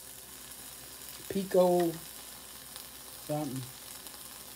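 Steady sizzling hiss from food in a heated electric grill-and-soup cooker, with a woman's voice briefly over it, twice.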